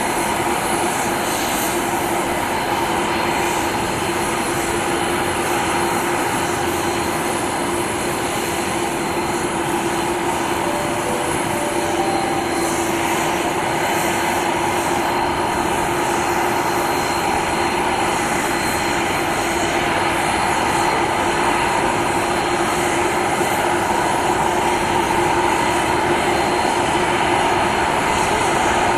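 Boeing 747-400 freighter's four General Electric CF6 turbofans running at taxi thrust: a steady jet whine over a broad rush of engine noise, growing slightly louder toward the end as the aircraft taxis closer.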